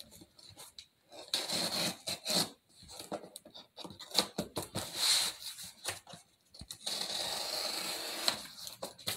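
Pocket knife cutting through packing tape along the edges of a cardboard mailer box, in short uneven scraping strokes with cardboard rustling. About seven seconds in comes a longer steady rasp of about a second and a half, as a strip of tape is slit or pulled.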